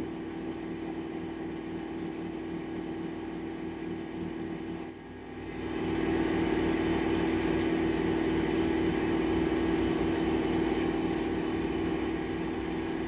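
A steady motor drone with an even hum, growing louder about six seconds in and holding there.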